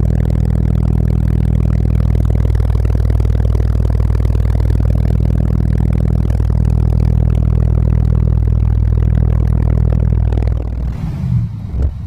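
Eight 15-inch Sundown Audio SA-15 subwoofers playing very loud, deep sustained bass inside the vehicle's cabin, with the body panels rattling and buzzing. The bass drops out briefly near the end and then returns.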